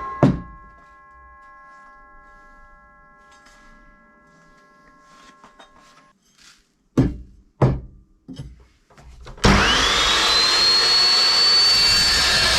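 Evolution metal chop saw: a thump as a cut ends, then ringing tones that die away over several seconds, and three sharp knocks. About three-quarters of the way through, the saw's motor starts suddenly with a rising whine that levels off and runs steady.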